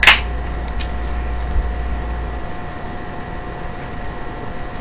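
Steady background hum and hiss of the room with a faint constant tone; a low rumble under it stops about two and a half seconds in. A single click comes right at the start.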